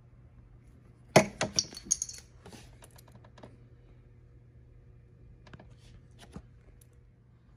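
A quick cluster of sharp clicks and light metallic rattles about a second in, then a few faint single clicks, as small hard parts are handled.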